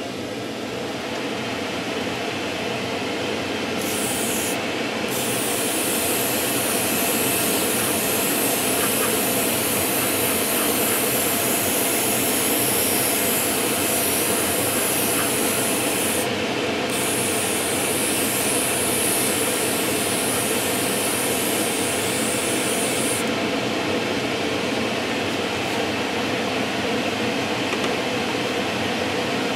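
Airbrush spraying primer in long hissing passes, with brief pauses about five and sixteen seconds in, and stopping a few seconds before the end. A steady lower rush of air runs underneath throughout.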